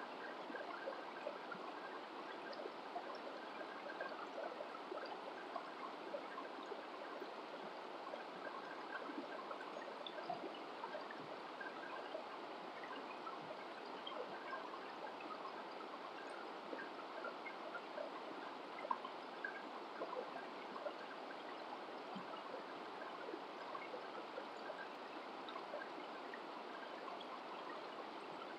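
Shallow rocky stream running over stones: a steady babble of water with small splashes and gurgles scattered through it.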